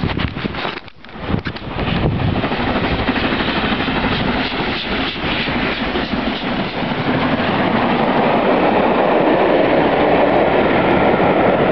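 Southern Railway King Arthur class 4-6-0 steam locomotive 30777 Sir Lamiel passing at speed, then its coaches rumbling and clattering by. In the first couple of seconds there is rough, uneven noise on the microphone.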